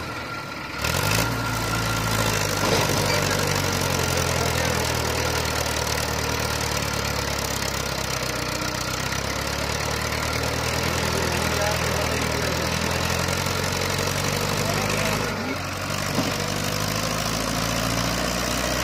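Diesel engines of two Mahindra tractors running steadily in deep mud, with brief dips in the sound about half a second in and around fifteen seconds in.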